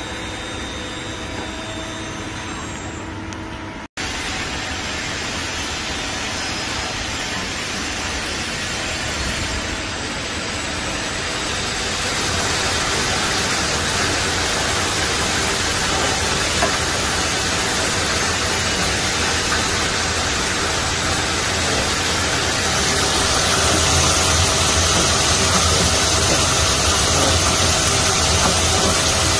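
Takamaz X-15 CNC lathe turning a part under flood coolant: the spindle and chuck run with a steady hiss of coolant spraying and splashing over the workpiece and tool. The sound cuts out for an instant about four seconds in, then grows louder in two steps.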